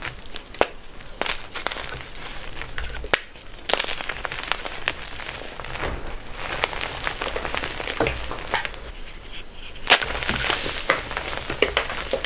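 Blocks of gym chalk being crushed by hand, crumbling and crackling with a scatter of sharp snaps; a louder crack comes about ten seconds in, followed by a dense stretch of crunching.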